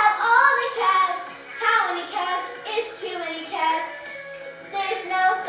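Music with a high singing voice over a steady accompaniment.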